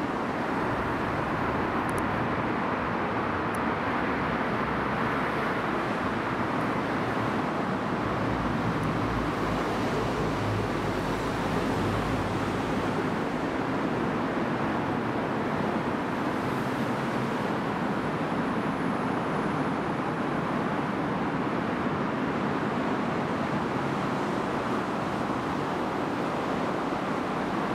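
Steady outdoor ambient rush, an even noise with no distinct events and a faint low rumble in the middle.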